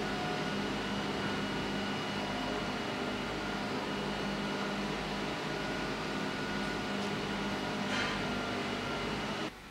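Steady mechanical hum of a running motor or fan, an even noise with a few steady tones in it, which cuts off suddenly near the end.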